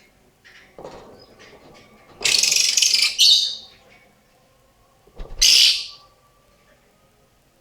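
Female lovebird giving two harsh, screechy calls, a long one about two seconds in and a shorter one about five seconds in. It is an odd call, unlike the usual lovebird chatter.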